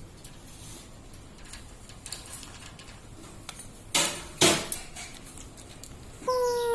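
Pet parrot in a quiet room: a few small clicks, two short harsh noisy bursts about four seconds in, then near the end a falling pitched call.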